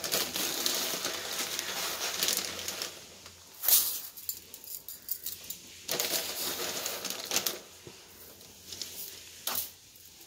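Dry seeraga samba rice being scooped out of a plastic bag with a steel tumbler and poured into a steel plate: a rattling hiss of grains running against steel and plastic, in two main stretches, with two sharp knocks, one about a third of the way in and one near the end.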